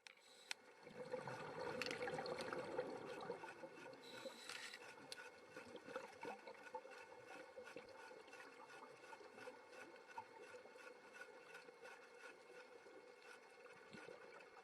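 Faint underwater ambience: water movement and bubbling with many small crackling clicks, louder for the first few seconds and then settling to a steady low wash.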